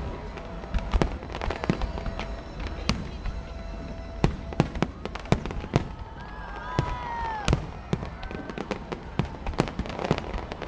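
Fireworks going off: an irregular string of sharp bangs and crackles, often several a second.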